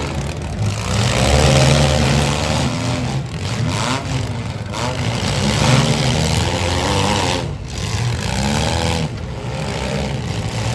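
Compact demolition derby cars' engines revving, the pitch rising and falling again and again over a steady noisy background.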